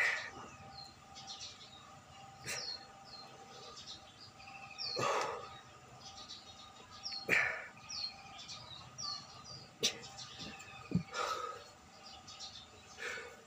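A person breathing hard while doing push-ups: a loud breath about every two and a half seconds, in time with the reps. Small birds chirp over and over in the background.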